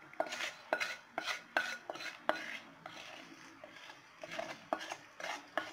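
Metal spoon clinking and scraping against a kadai, in an irregular run of short clicks, as the hot tempering is scraped out into a bowl of chutney.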